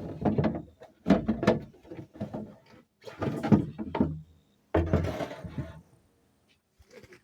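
Four bursts of knocking and clattering, as of a hard object being handled and knocked about, each lasting about a second with short pauses between.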